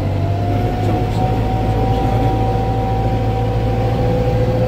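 Engine running steadily: a low rumble with a thin whine drifting slowly in pitch.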